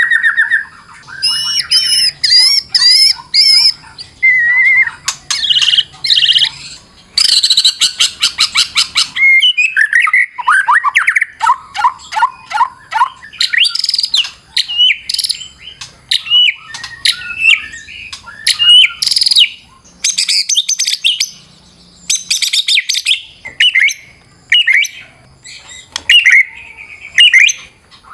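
White-rumped shama (murai batu) singing a long, varied song of whistled phrases and trills. There is a fast rattling run about seven seconds in, followed by a string of downward-slurred whistles and then short, quick chattering phrases.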